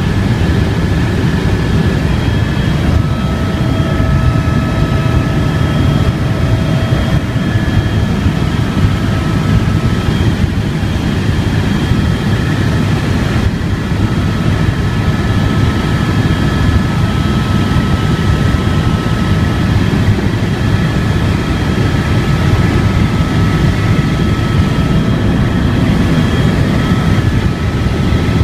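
Helicopter in level flight heard from inside the cabin: a loud, steady rotor and engine noise with a faint high turbine whine over it.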